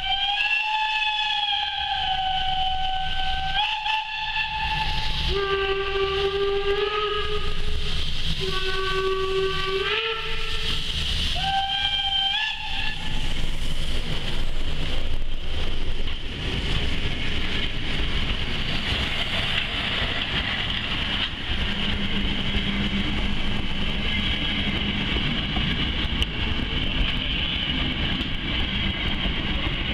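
Steam locomotive whistle sounding about five blasts in the first dozen seconds, each at a different pitch, some high and some lower with a deeper note under them. Then the locomotive and its passenger coaches roll slowly past with a steady rumble of wheels and a hiss of steam.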